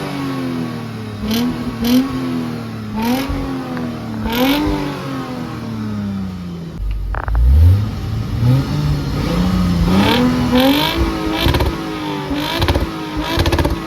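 2010 Lexus IS250's 2.5-litre V6 heard through an Invidia Q300 axle-back exhaust, revved over and over: each time the pitch climbs quickly and then sinks back slowly. About seven seconds in the note drops right down, then climbs in steps again.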